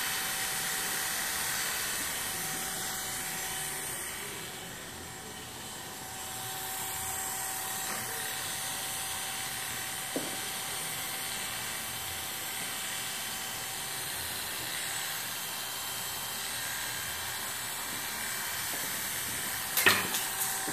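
Oster Classic 76 electric hair clipper running with a steady whine while cutting clipper-over-comb to taper the neckline. A few sharp clicks come near the end.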